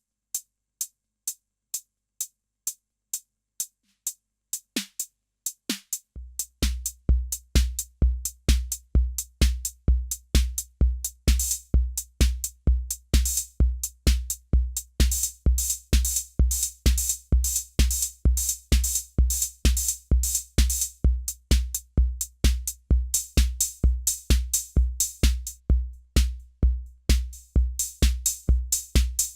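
Roland TR-606 Drumatix analog drum machine playing a steady pattern: at first only sparse short ticks, then about six seconds in a deep kick drum enters at about two beats a second, with busier, brighter hi-hat and cymbal hits layered over it.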